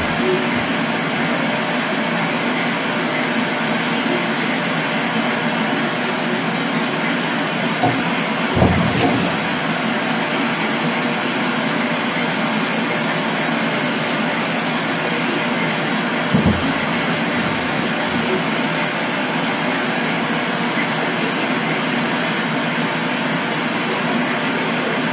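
Steady loud rushing noise, with a dull knock about eight seconds in and another about sixteen seconds in.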